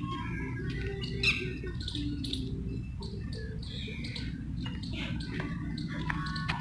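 Birds chirping and calling in many short, overlapping calls, the loudest about a second in, over a steady low rumble.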